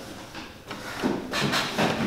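Hand-operated shoe-repair bench tool worked along a boot's new sole edge: a run of short, irregular scraping strokes that grow louder near the end.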